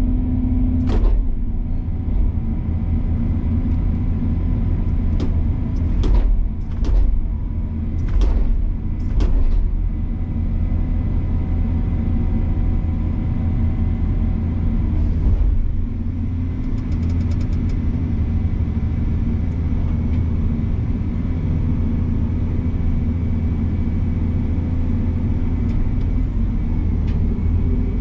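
Excavator engine running steadily, with a series of sharp knocks and clanks between about one and ten seconds in.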